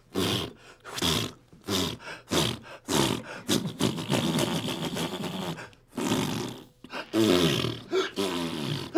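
A man imitating a "coochie fart noise" with his mouth: a long string of short, irregular blown noises, turning into voiced noises near the end.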